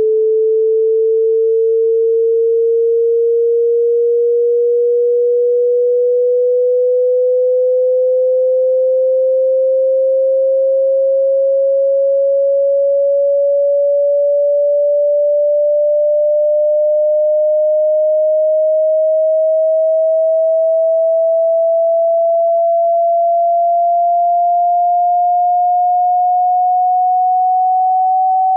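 A pure sine tone rising slowly and smoothly in pitch, at a steady loud level, with no other sound. It is the middle stretch of a hearing-test sweep that climbs from 20 Hz to 20 kHz.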